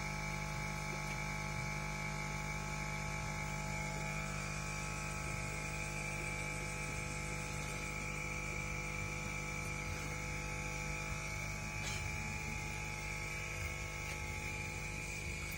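A steady, unchanging hum with a high whine over it, like an electrical or machine drone.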